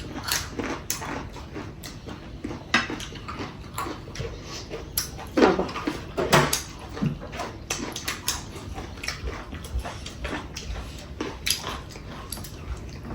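Close-up eating sounds: irregular wet chewing and mouth smacks as curry and rice are eaten, with occasional light knocks against a plate.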